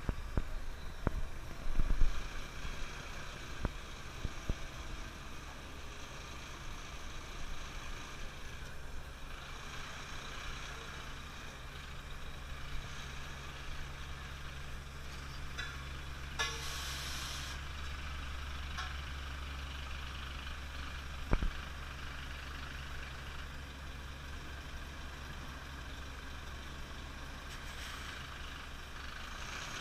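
Heavy truck's diesel engine running steadily at low revs as the truck creeps forward laying asphalt. A few knocks come in the first seconds, a short hiss of air about sixteen seconds in, and one sharp knock about twenty-one seconds in.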